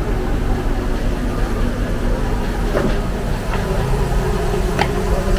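Steady low rumble and hum of a gas stove burner firing under an iron kadai, with two or three light clinks of the metal ladle against the pan.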